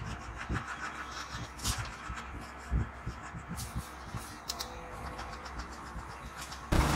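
Barber's scissors snipping hair in short, irregular clicks between comb strokes, over a low steady hum. Near the end a louder steady buzz starts suddenly, an electric hair clipper switched on.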